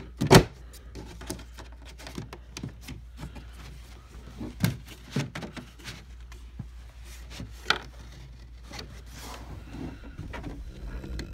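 Hands pulling paper tabs off a cardboard box: rubbing, scraping and rustling with scattered clicks and a few sharp knocks, the loudest just after the start and others near the middle and about two-thirds of the way through.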